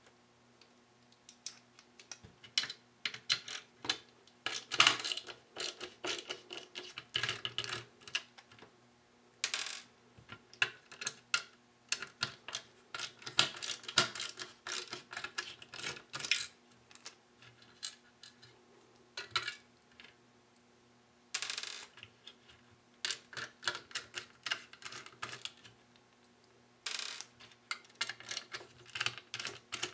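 Small screws being backed out of an electricity meter's circuit board with a hand-held precision screwdriver: an irregular run of light metal clicks, taps and scrapes. Now and then there is a short clatter of small hardware set down on the desk.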